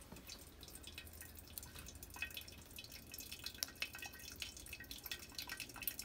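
Bunn drip coffee maker brewing: hot coffee dripping and trickling into the glass carafe in irregular drips.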